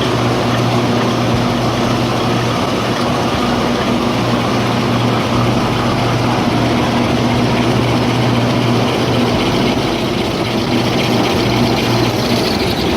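Kitchen towel roll converting machine with colour gluing running steadily: a constant loud mechanical din with a steady low hum.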